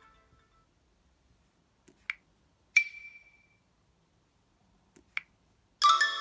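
LG Spirit smartphone alert tones: short separate electronic blips, one ping about three seconds in with a brief ringing tail, and near the end a bright chime of several notes begins.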